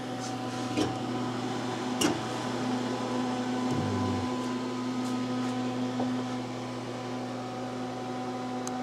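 Steady electrical hum with fan-like whir from a CNC mill's powered control cabinet, which holds a variable frequency drive, transformers and a PC. Two sharp clicks come about one and two seconds in as the steel cabinet door is opened.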